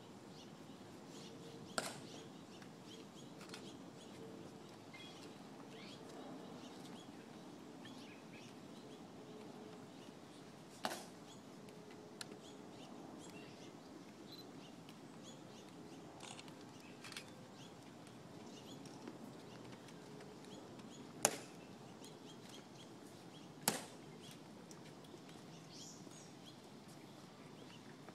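Hushed outdoor ambience with a faint steady hum, broken by a handful of sharp, isolated clicks spread irregularly, the loudest two near the end: the ceremonial guards' heel clicks and rifle handling during the changing of the guard.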